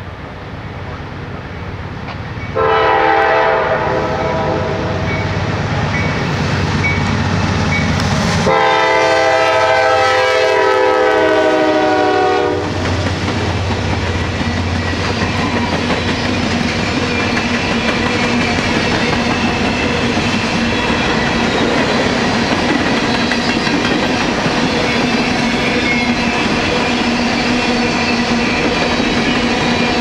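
Norfolk Southern GE Dash 9 diesel locomotives rumble as they approach, then the lead unit's horn sounds two long chord blasts, one straight after the other. After that, a long train of empty coal hoppers rolls steadily past, its wheels clickety-clacking over the rail joints.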